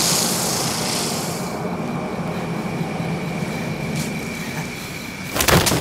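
Dramatic sound design in the aftermath of a fiery blast: a low rumbling drone with a hiss that fades after about a second and a half, then a thin steady high ringing tone. A sharp loud hit comes near the end.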